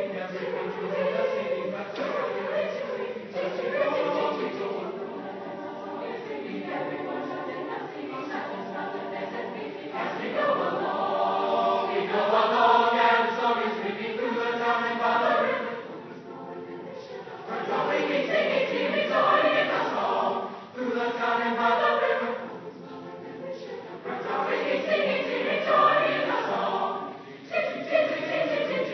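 A school chorale singing, many voices together in phrases that swell and fall in loudness.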